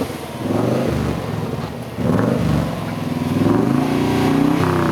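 Car exhaust during a sound check: the engine is revved up and eased off a few times, with a sharp rise about two seconds in and another near the end.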